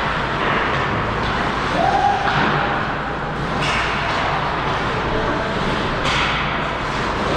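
Ice hockey rink game sound: a steady wash of rink noise with a couple of sharp hits or scrapes, of the kind made by skates, sticks and the puck on ice and boards, a few seconds apart.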